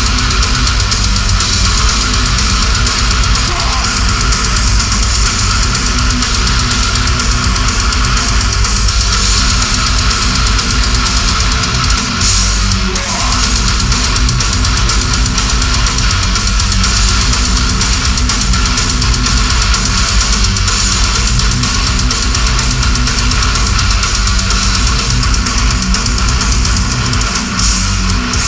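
Death metal band playing live and loud: heavily distorted electric guitars, bass guitar and a drum kit in a dense, continuous wall of sound.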